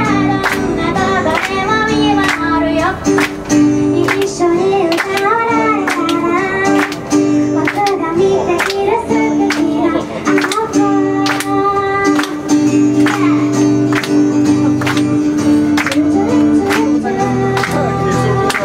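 A woman singing live to her own strummed acoustic guitar, a melodic pop song with a steady beat, while the audience claps along in time, about two sharp beats a second.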